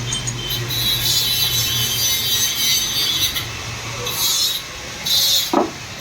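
Brake lathe skimming a car's brake disc: the motor runs with a low hum while the cutting tool scrapes across the metal rotor face, which is being resurfaced to cure brake vibration and noise. The steady scraping stops about three and a half seconds in, and two short scraping bursts follow.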